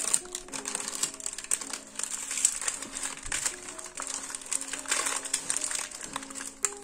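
Baking parchment crinkling and rustling as a baked cocoa sponge sheet is lifted and rolled up in it. Background music with a simple melody plays underneath.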